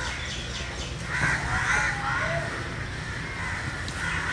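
Crows cawing, a few calls about a second in, over a low steady rumble.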